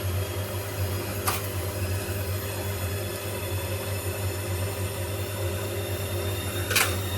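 Bosch washing machine spinning its drum on a 600 RPM spin cycle: a steady motor hum. Two short sharp clicks stand out, one about a second in and one near the end.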